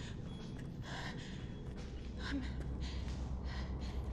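A frightened woman's heavy, gasping breaths, several in a row, over a low rumble.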